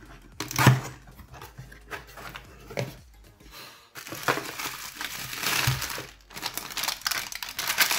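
Cardboard box being opened, with a couple of sharp knocks about half a second in. From about halfway there is dense crinkling of bubble wrap and a plastic bag as they are handled and pulled out of the box.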